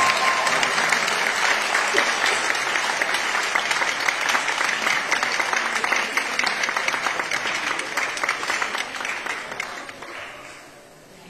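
Group applause, a dense patter of many hands clapping, that fades out near the end.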